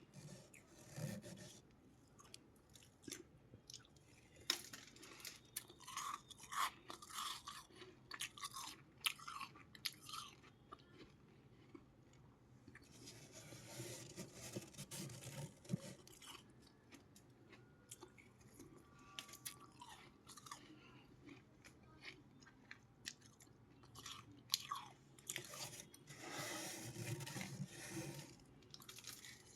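Freezer ice being bitten and chewed: a run of crisp crunches and cracks, coming in bursts with short pauses between.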